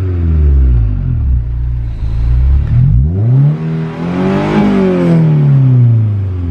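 Honda S2000's four-cylinder engine through an aftermarket MagnaFlow dual-outlet exhaust, revving under throttle. The pitch climbs to a peak about two-thirds of the way through, then drops away.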